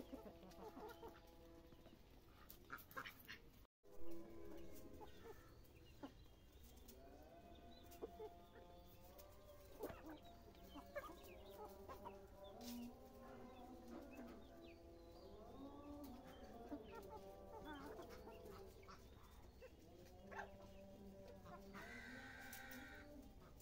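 Domestic chickens clucking softly over and over as a flock of hens and roosters forages, with one louder burst about four seconds in.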